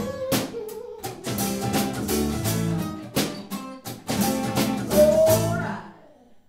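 Two acoustic guitars strumming chords with sharp percussive strokes in the closing bars of a song. The last chord rings and dies away about six seconds in.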